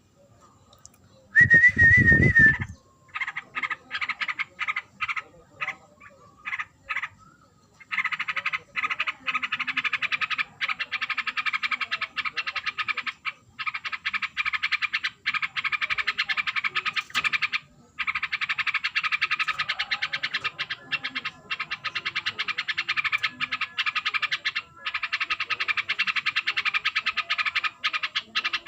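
Yellow-vented bulbul (trucukan) in breeding condition giving long runs of rapid, stuttering chatter, a fast train of pulses that breaks off briefly every few seconds. About a second and a half in, a short loud wavering whistle comes with a low thump.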